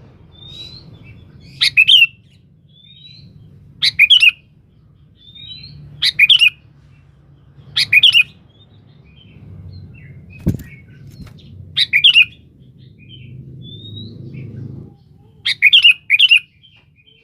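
Sooty-headed bulbul (kutilang) calling repeatedly: short, loud, bubbly phrases about every two seconds, with softer rising whistled notes in between. A single sharp click about ten and a half seconds in.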